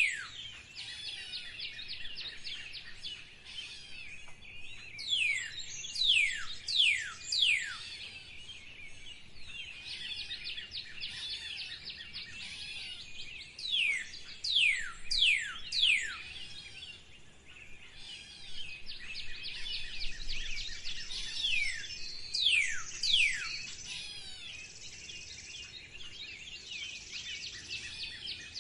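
Wild birds calling. One bird gives loud, clear whistles that sweep steeply downward, in runs of three or four every several seconds, over a constant chatter of many smaller birds chirping.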